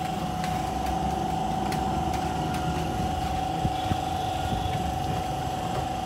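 A motor running steadily, giving an even hum with a constant high tone over a wavering low rumble, with a few faint light ticks on top.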